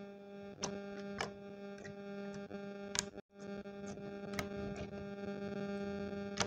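Clear slime being poked, pressed and stretched by fingers, giving sharp sticky clicks and pops about once a second. A steady droning hum of several even tones sits underneath and breaks off briefly about three seconds in.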